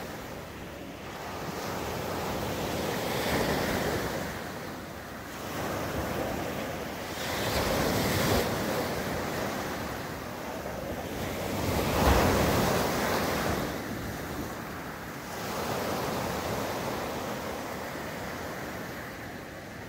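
Sea waves breaking on the beach, the surf swelling and falling away every few seconds, loudest about two-thirds of the way through, with some wind on the microphone.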